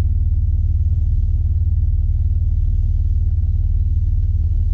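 Mitsubishi Pajero 4x4 engine idling steadily while the vehicle stands still, heard from inside the cabin as an even, low-pitched hum.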